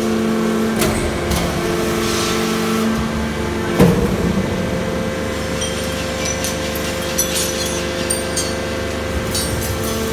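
Huake heavy-duty hydraulic scrap metal shear running, its hydraulic power unit humming steadily as the shear blade lifts. A loud clunk comes about four seconds in, after which the hum's pitch shifts. Light metallic clicking and rattling follow near the end.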